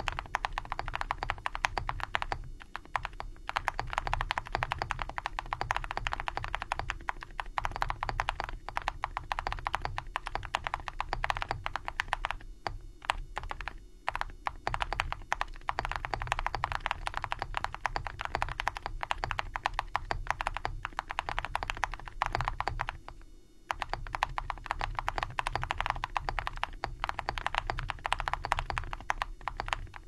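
Continuous fast typing on a Velocifire Sun68 mechanical keyboard with JWick semi-silent linear switches, Cerakeys ceramic keycaps, a polycarbonate plate and full foam dampening: a dense stream of keystrokes, broken by a few brief pauses.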